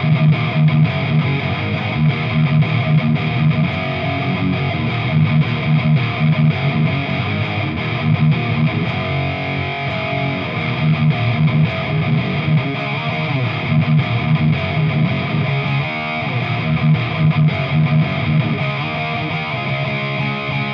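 Chapman ML3 electric guitar with a Seymour Duncan Quarter Pound bridge pickup played on a crunch tone, strumming chords in a steady rhythm.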